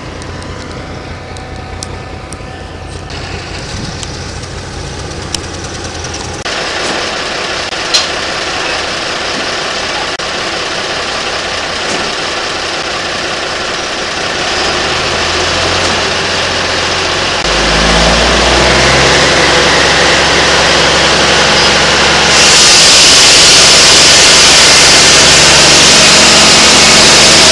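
Engine-driven sawmill machinery running, getting louder in several steps and loudest in the last few seconds.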